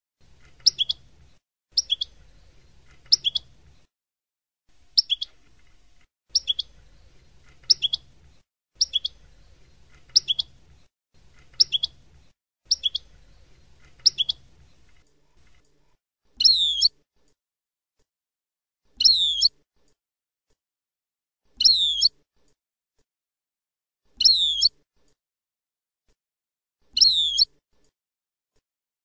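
European goldfinch calling: short sharp notes about once a second over a faint low hum. From about halfway, a louder note sweeping downward repeats every two to three seconds.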